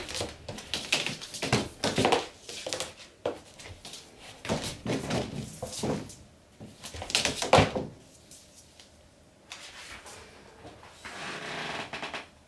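A Thai cat pouncing on a feather wand toy: irregular thumps and knocks of its paws and body hitting the floor and the toy's stick tapping down, coming thick and fast for about eight seconds, then thinning out.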